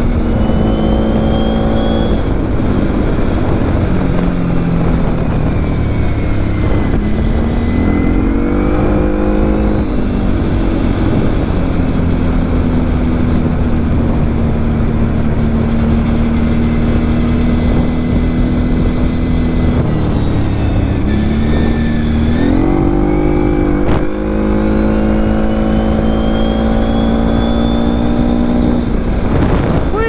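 Kawasaki KFX 700 V-Force quad's V-twin engine running under way. It revs up as it accelerates about a quarter of the way in, holds a steady note, eases off and revs up again about three quarters of the way in.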